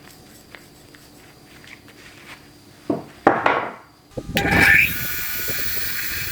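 Workshop tool noise: a few faint ticks, then two or three loud scraping strokes about three seconds in, then a power tool starts up and runs steadily.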